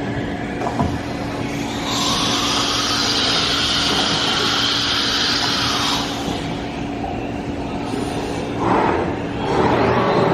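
Thermwood CS 45-510 CNC router running, with a steady hum throughout and a strong hiss from about two to six seconds in.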